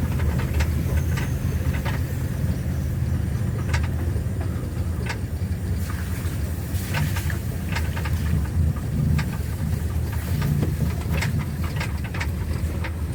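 A vehicle driving slowly over a rough, bumpy track: a steady low engine and road rumble with scattered knocks and rattles from the jolting.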